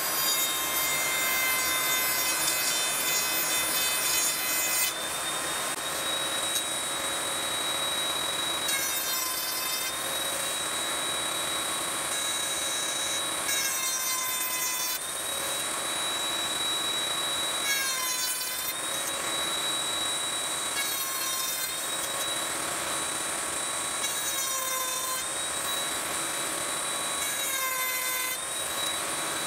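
Ryobi MTR-42 trim router running in a router table, its steady whine dipping under load each time the bit cuts a box-joint slot into plywood, with a rasping cutting noise. The cuts come repeatedly, every few seconds.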